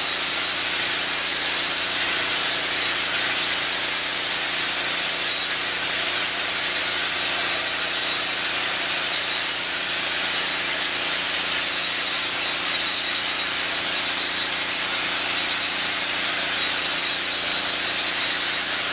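Stand-up concrete floor grinder running steadily, its head grinding an old acid stain off a concrete surface: an even grinding noise with a constant motor hum underneath.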